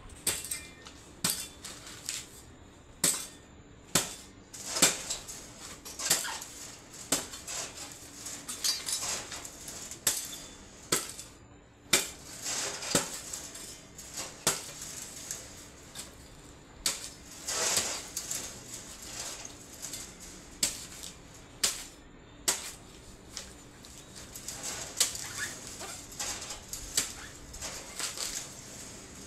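A cutting tool striking a dry coconut as it is cut open and husked: irregular sharp knocks about a second apart, with a few longer scraping stretches.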